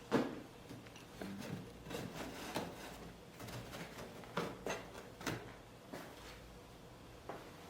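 Irregular light knocks and clicks of small wooden parts handled on a work surface, with soft rubbing between them; the sharpest knock comes right at the start.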